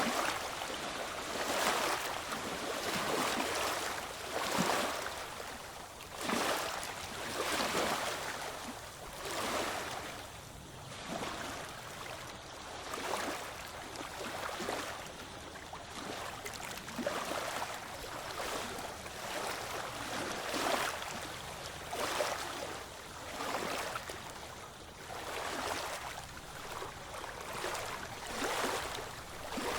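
Ocean waves washing in on the shore, a wash of surf noise that swells with a fresh wave every few seconds and eases between them.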